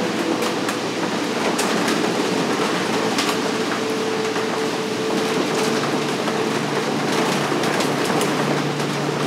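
Steady ambient sound bed: a dense hiss-like wash with a few low held tones and scattered faint crackles.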